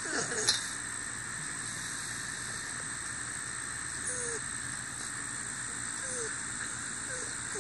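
Puppy whimpering: short, falling whines a couple of seconds apart, with a louder yelp-like sound about half a second in, over a steady outdoor hiss.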